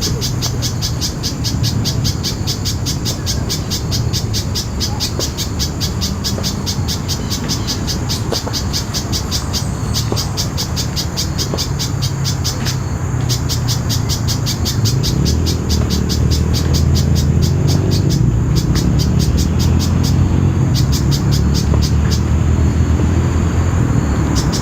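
Little spiderhunter calling: a long run of rapid, sharp, high-pitched notes, several a second, broken by a few short pauses. A low rumble of road traffic runs beneath and grows louder in the second half.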